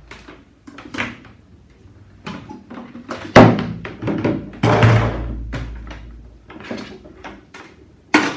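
Handling knocks and thuds as a Klarstein Passionata Rossa 20 espresso machine, with a metal body, is lifted and set down on a kitchen scale. The loudest thumps come about three and a half and five seconds in, and a sharp clack comes near the end.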